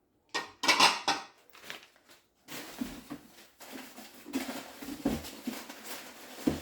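Glass dishes being lifted out of a box and handled, with rustling and crinkling of the packing and a sharp knock near the end.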